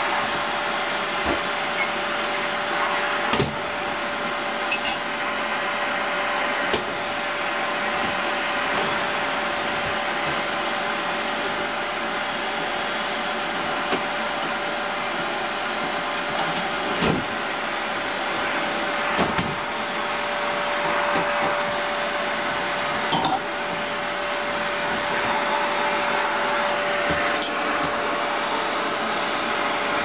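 Canister vacuum cleaner running steadily with a constant motor whine, and a few sharp knocks as the wand and floor nozzle bump the wooden floor and furniture.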